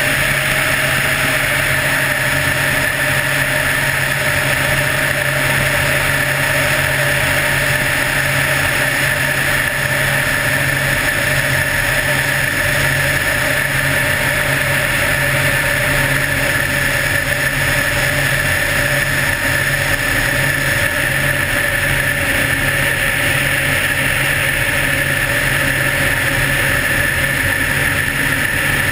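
Helicopter in flight: steady engine and rotor noise with a constant high whine running over it.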